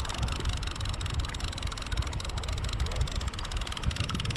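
Wind buffeting the microphone, an uneven low rumble over a steady hiss of wind and sea.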